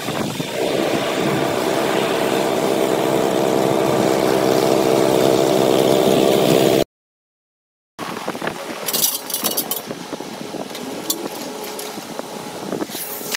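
The small engine of a road line-marking machine runs steadily under a constant hiss, then cuts off suddenly. About a second later a telehandler-mounted bale wrapper turns a round bale, giving an uneven machine hum with scattered clicks and short high squeaks.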